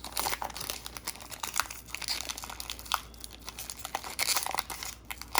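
A trading card pack's wrapper crinkling and crackling in irregular bursts as it is handled and worked open.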